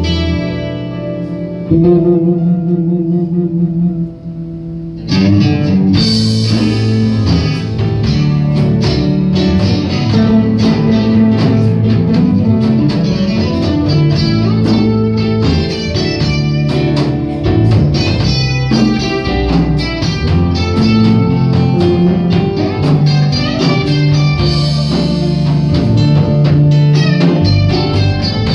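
Live amplified music: an acoustic guitar and a keyboard playing a blues-flavoured instrumental passage. It starts with quieter held notes, then gets louder and busier about five seconds in.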